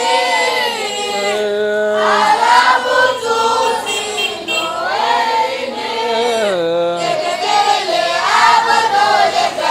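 Children's choir, boys and girls together, singing a slow Arabic elegy in unison: long, drawn-out notes that bend and glide in pitch.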